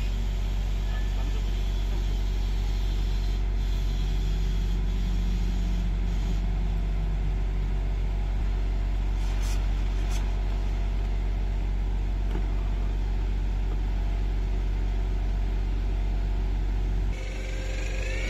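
A truck engine idling steadily with a deep rumble. Near the end a higher whine starts up and rises in pitch.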